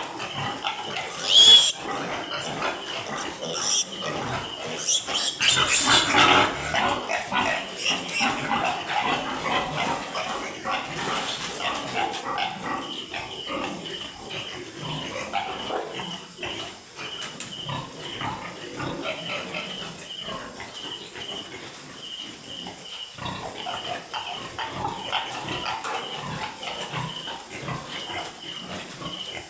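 Piglets squealing and grunting, with the loudest, sharpest squeals in the first six seconds and calmer grunting and squealing after that.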